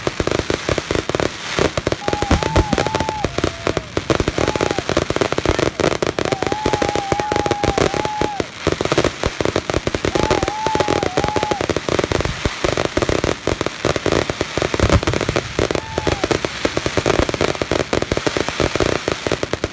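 Fireworks display going off in a dense, unbroken barrage of crackles and bangs, many reports a second. A faint wavering tone rises over it a few times.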